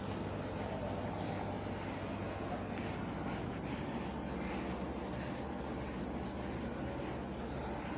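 A whiteboard duster rubbed back and forth across a whiteboard to erase it: repeated swishing strokes, about two or three a second, over a steady low room hum.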